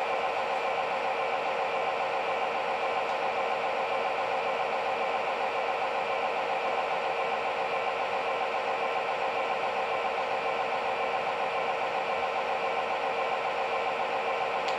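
Onboard sound system of a Lionel LionChief RS3 diesel model locomotive, playing a steady diesel idling loop through its small speaker while the model stands still.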